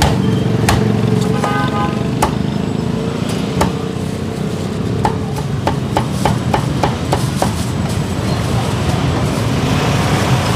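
Meat cleaver chopping crispy-skinned roast pork on a round wooden chopping block: a few single chops, then a quick run of about ten sharp chops, roughly four a second, from about five seconds in.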